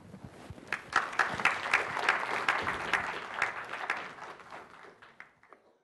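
Audience applauding at the end of a lecture, the clapping swelling up about a second in and dying away near the end.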